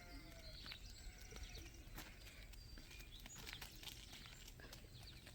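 Near silence, with faint scattered taps of footsteps on the ground.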